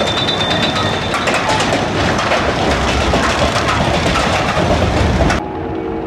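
River King Mine Train roller coaster running along its track, its wheels clattering and rattling in a dense run of clicks, with a high squeal in the first second. The sound cuts off abruptly about five and a half seconds in, leaving a quieter sound with a few steady held tones.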